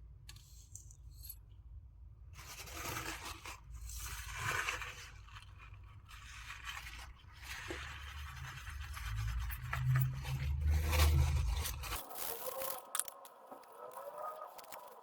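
Irregular scraping and rubbing on a hard surface while working on a PC component's thermal paste. A low handling rumble sits under it and cuts off about twelve seconds in.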